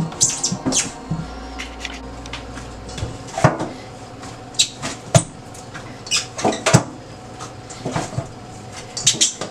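Breadfruit dough being kneaded by hand in a stainless steel bowl: irregular knocks and clanks as the metal bowl is pushed about in the steel sink, a few to a second or more apart.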